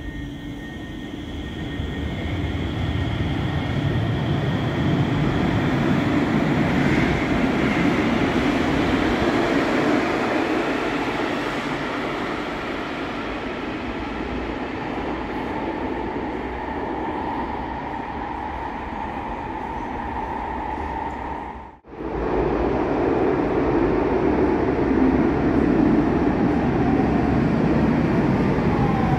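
Cologne Stadtbahn light-rail train running in an underground station: a loud, steady rumble of wheels on rails that swells over the first few seconds, with a steady motor whine in the middle. The sound cuts out for an instant a little over 20 seconds in, then the rumble comes straight back.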